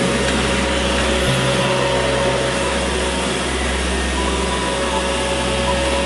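iRobot Roomba i3 robot vacuum running on a ceramic tile floor: the steady whirr of its suction fan and brushes.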